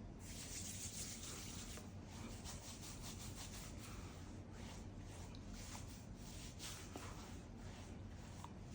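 Faint, repeated rubbing strokes of a round brush's bristles drawn through beard hair, several strokes a second.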